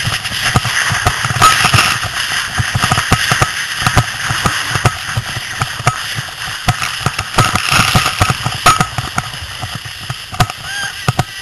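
Sled runners scraping and hissing over snow during a fast downhill bob run, with frequent knocks and jolts from bumps in the track.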